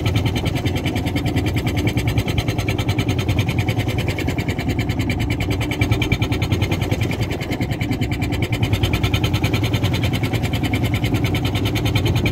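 A fishing boat's engine running steadily, with a fast, even pulse.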